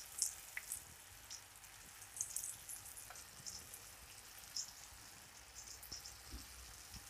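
Flour-coated meatballs shallow-frying in oil over low heat: a faint, gentle sizzle with scattered irregular crackles and pops.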